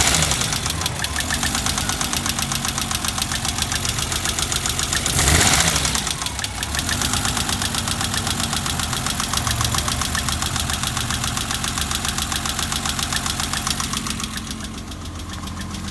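BMW E30 325i's M20 2.5-litre inline-six idling roughly, with a rapid, even ticking from the valvetrain, a sign that the valve clearances are still not set right after a valve adjustment. A brief louder surge comes about five seconds in, and the sound grows quieter near the end.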